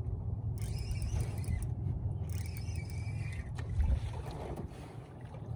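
Spinning reel cranked while reeling in a hooked fish: a faint whir comes and goes over a steady low rumble, and there is a single thump about four seconds in.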